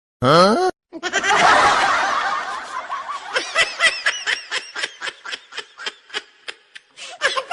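A quick rising pitched swoop, then a long stretch of laughter that breaks into short, rapid bursts, about four a second, tailing off near the end.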